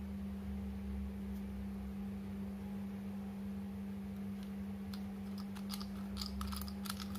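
Light plastic clicks and taps as a glucose test-strip vial is handled and its flip-top lid is snapped shut. The clicks come in a cluster over the last two seconds, over a steady low hum.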